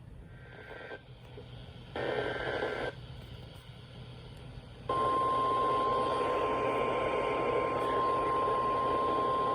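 NOAA Weather Radio broadcast over radio static: two short data bursts, the second louder, then about five seconds in the steady single-pitch 1050 Hz warning alert tone starts and holds. The tone signals that a new warning message is about to be read.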